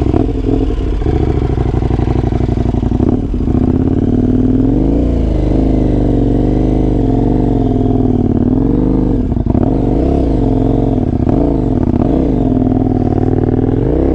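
KTM 1090 Adventure's V-twin engine running just after being started on a steep climb, the revs rising and falling several times from about four seconds in.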